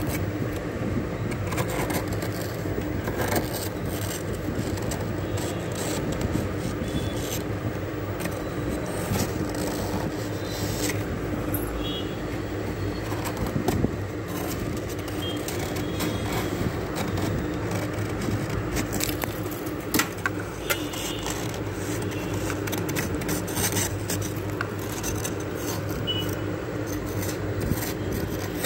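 A spoon and fingers scraping and crunching thick frost inside a freezer, with many small scattered clicks, over a steady low hum.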